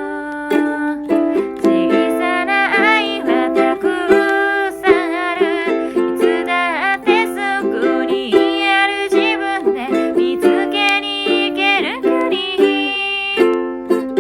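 Ukulele playing a song, with a voice singing the melody over it.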